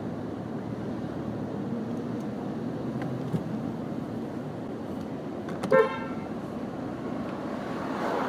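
Steady street traffic rumble, with one short car horn toot a little under six seconds in.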